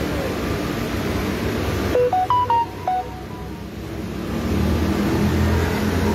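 A quick run of about six electronic beeps, stepping up and then down in pitch within about a second, over steady street traffic noise; a low vehicle hum rises near the end.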